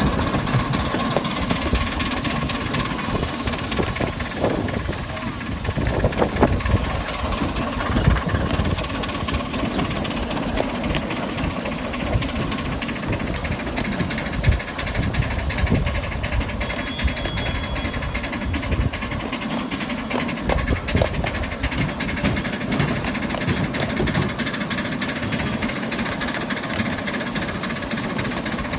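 Riding right behind the miniature-railway steam locomotive Tazmin: a steady, fast knocking from the engine and the wheels running over the track, with a few louder clunks.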